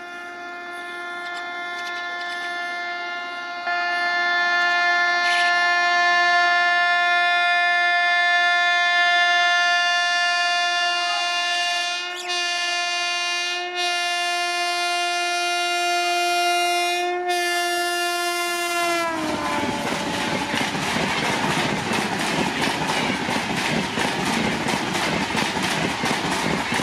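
A WAP-7 electric locomotive's horn held in one long blast as it approaches at about 130 km/h, growing louder, its pitch dropping as the locomotive passes about nineteen seconds in. Then the coaches pass with rapid wheel clatter.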